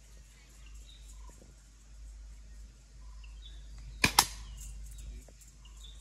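An archery shot: the bowstring snaps on release and, a fraction of a second later, the arrow strikes the target, two sharp hits close together about four seconds in.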